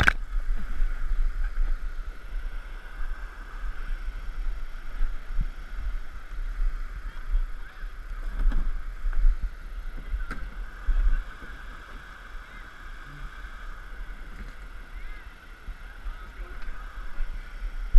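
Steady rush of river rapids, with a low rumble on the body-worn camera's microphone and a few soft footsteps on rock.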